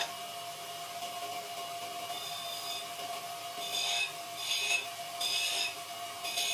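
A hand tool scraping across wood in repeated strokes, about one a second from halfway in, over a steady faint hum.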